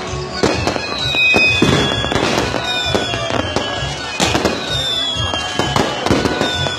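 A fireworks display going off: repeated sharp bangs and crackling. Several high whistles slowly fall in pitch.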